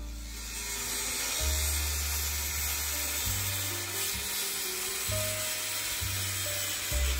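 Corded circular saw running steadily as it cuts through 4-inch PVC pipe, over background music.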